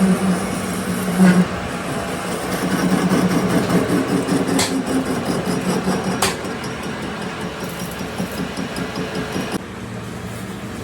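Workshop machinery running steadily with a low hum, with two sharp metallic clicks in the middle; the sound drops in level near the end.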